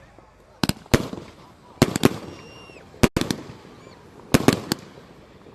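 Fireworks going off: a series of sharp bangs at irregular intervals, several in quick pairs.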